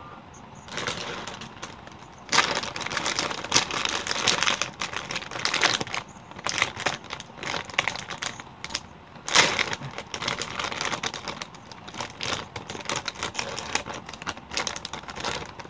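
A foil Takis chip bag crinkling as it is handled and pulled open: a dense, irregular run of crackles that starts about a second in and grows heavier a second later.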